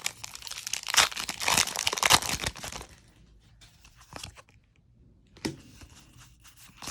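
Foil booster-pack wrapper of Pokémon trading cards crinkling and tearing for about three seconds, then a few faint clicks.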